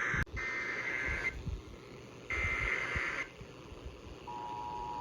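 Emergency Alert System SAME header tones: two harsh, buzzing digital data bursts about a second long each, then, about four seconds in, the steady two-tone EAS attention signal starts. This sequence marks the start of a new alert.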